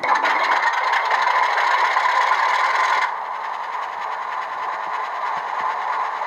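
Model Alco RS-2 locomotive running with its ESU LokSound V4 decoder playing diesel engine sound through a small speaker, over a fast mechanical rattle; about three seconds in the sound drops in level and becomes duller.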